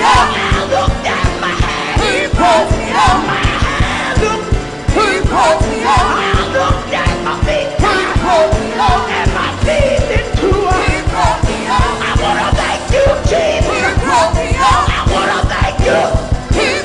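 Gospel choir singing with a live band over a fast, steady drum beat.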